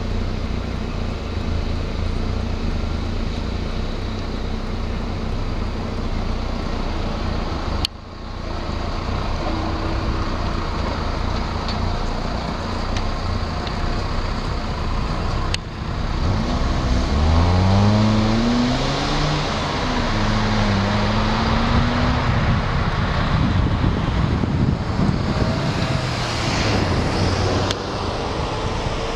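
Steady vehicle engine and road noise heard from inside a car driving slowly. Around the middle, the engine rises in pitch a few times as a vehicle speeds up.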